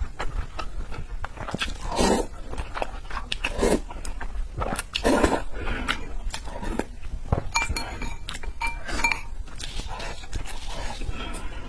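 Close-miked eating sounds: chewing and lip-smacking on red-braised pork belly, with many small wet clicks and a few louder, longer mouth noises about two, four and five seconds in.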